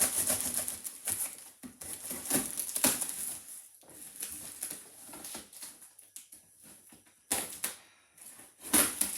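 Cardboard box being opened by hand: irregular crackling and rustling of cardboard and packing. The sound is dense for the first few seconds, then sparser, with two louder rips near the end.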